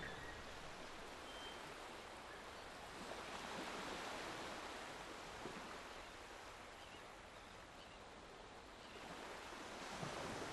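Faint sea ambience: an even wash of wave noise that swells and eases, louder a few seconds in and again near the end.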